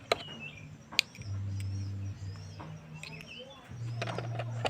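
Small birds chirping repeatedly in the background, with a few sharp clicks from handling and a low hum that comes and goes.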